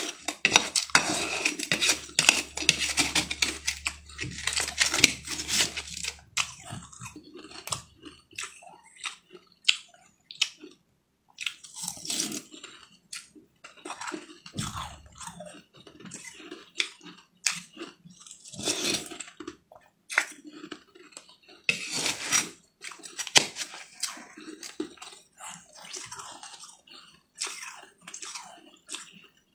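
Close-up crunching and chewing of spoonfuls of green crushed ice, in irregular crackling bursts that are densest in the first few seconds and come back several times later, with a metal spoon now and then clinking and scraping in a metal bowl.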